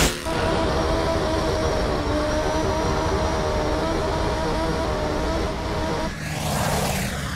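Cartoon sound effect for a speeding snail: a steady engine-like drone made of several held tones, opening with a short whoosh and ending about six seconds in with another whoosh.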